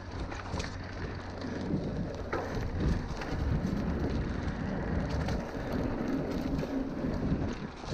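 Enduro dirt bike being ridden along a trail: a steady rushing hiss over a low rumble.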